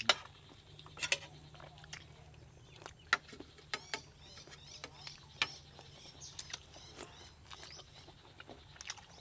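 Scattered sharp clicks of spoons against ceramic plates and bowls as people eat, with birds chirping in the background over a low steady hum.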